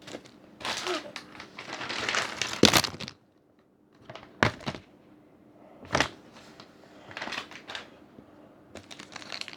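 Play-Doh things being handled: crinkly plastic rustling for a couple of seconds, broken by a few sharp clicks and taps, then lighter crackling near the end.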